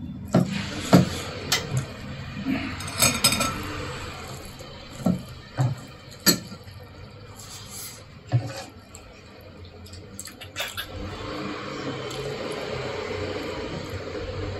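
Spoons and cutlery clinking and tapping against ceramic plates and bowls during a meal: about a dozen sharp, separate clinks over the first ten seconds or so, then softer steady sounds toward the end.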